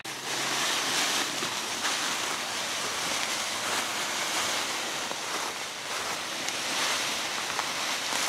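Dry fallen leaves rustling steadily as a whitetail deer carcass is dragged over the leaf-covered forest floor, mixed with a person's footsteps in the leaves.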